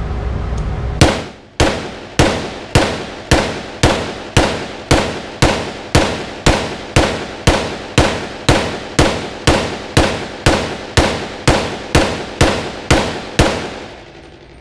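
Radical Firearms 8.5-inch .300 Blackout AR pistol with a forward linear compensator, fired semi-automatically: about two dozen shots at a steady pace of roughly two a second, each echoing off the walls of an indoor range.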